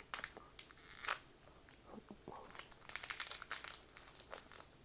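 Trading-card booster pack wrapper being torn open and crinkled by hand: short crackly bursts, with a sharper rip about a second in.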